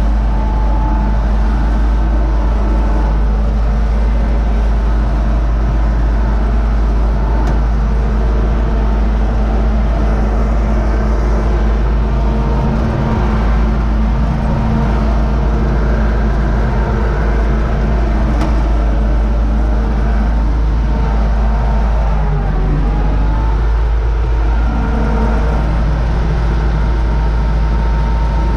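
Universal U650 tractor's diesel engine running steadily under load, heard from inside the cab, mixed with the clatter of a tractor-drawn Zmaj Zemun 223 corn picker working.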